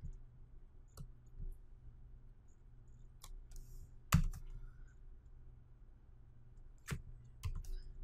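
About eight scattered clicks of a computer mouse and keyboard, the loudest about four seconds in, over a faint low hum.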